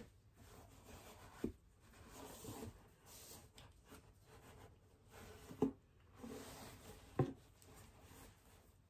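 Paper packing rustling and crinkling as it is pulled out of a pair of sandals by hand, with three short, soft knocks along the way.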